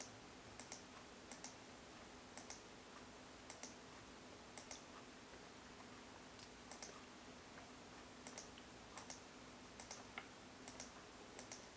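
Faint paired clicks, about a dozen, each a quick press-and-release as letters are entered one by one on an on-screen keyboard, roughly one a second with a longer pause in the middle.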